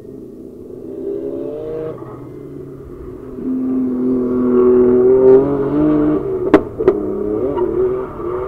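Drift cars' engines revving hard, the pitch holding, stepping and bending as the throttle changes, louder through the middle. Two sharp cracks in quick succession a little past halfway.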